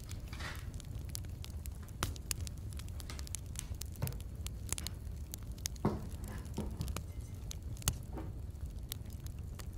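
Hands working soft shortbread dough on a plastic board: dough being broken apart and set down, with light scattered clicks and a few louder knocks as a piece goes into a glass bowl, over a steady low hum.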